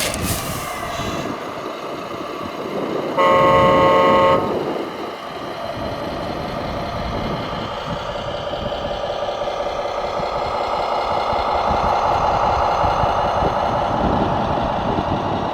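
Truck horn sounding once for about a second, over the steady running of truck and machine engines.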